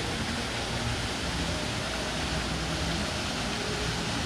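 Steady rush of flowing water in a hot-spring pool, an even hiss with no single events standing out.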